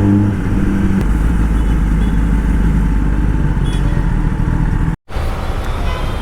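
Kawasaki ZX-10R's inline-four engine running on the move, its pitch easing down in the first second, then a steady low rumble of engine and wind. The sound drops out completely for a moment about five seconds in.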